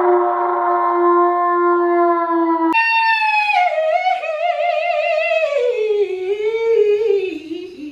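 A man singing with showy, held notes: one long steady note, then, after a sudden break, a high note with wide vibrato that slides down in steps and trails off near the end.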